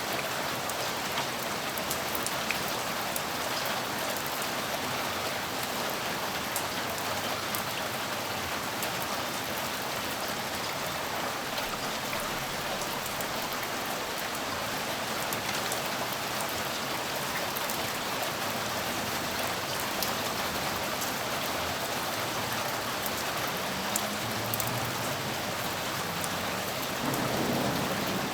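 Steady heavy rain pattering, with individual drops ticking, and a low rumble of distant thunder building near the end.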